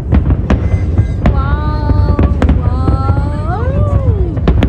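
Fireworks going off: a quick string of sharp bangs over a continuous deep rumble. From about a second in a long pitched sound rides over them, holding steady and then sliding up and down near the end.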